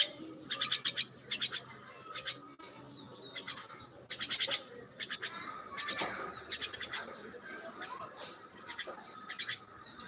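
Myna calling: short bouts of rapid clicking rattles, repeated every second or so, with a few faint whistled notes between them.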